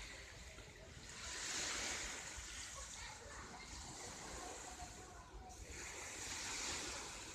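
Sea surf washing onto the shore, two swells of waves about five seconds apart, over a steady low rumble.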